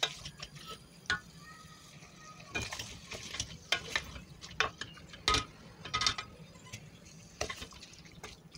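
Wooden spoon stirring chicken pieces in a stainless steel pot, with irregular light knocks and scrapes of the spoon against the pot.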